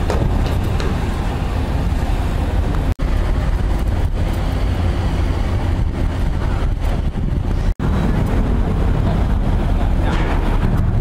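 Steady low rumble of a large passenger ferry's engines as it leaves the quay, under an even hiss of harbour noise. The sound cuts out abruptly twice, about three seconds in and about eight seconds in.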